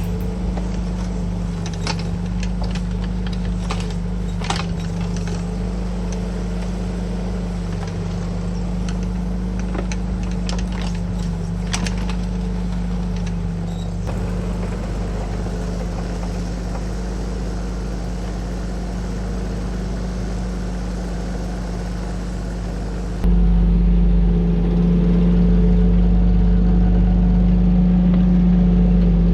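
Bobcat 325 mini excavator's diesel engine running steadily, with scattered sharp clicks and knocks over the first half. About three-quarters of the way through, the engine abruptly gets louder.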